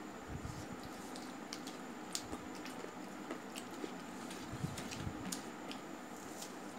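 Close eating sounds of a person chewing a mouthful of rice and chicken curry, with scattered light clicks and wet smacks.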